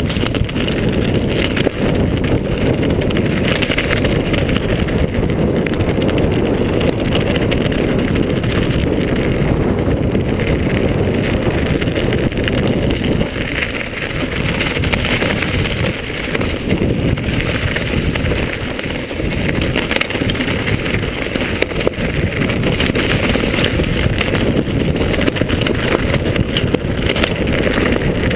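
Wind rushing over the camera microphone and mountain-bike tyres rumbling on a dirt trail during a fast descent: a loud, steady, low rush with no break.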